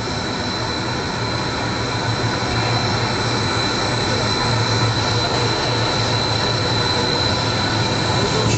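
Chrysanthemum packing net making machine running: a steady, loud mechanical drone with a low hum and a thin, steady high whine.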